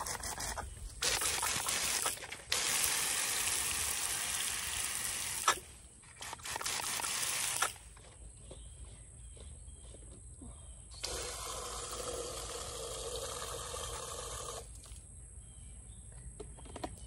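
Water spraying from a Miracle-Gro hose-end feeder on a garden hose, a steady hiss that comes in spells: one from about a second in to nearly eight seconds with two short breaks, and another of a few seconds past the middle, with quieter pauses between.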